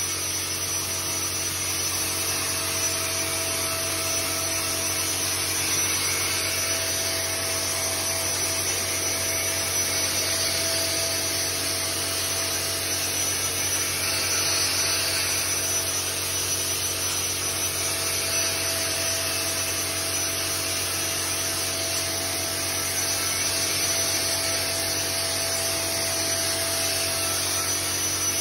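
Handheld electric blower running steadily: a constant rush of air with a faint steady whine.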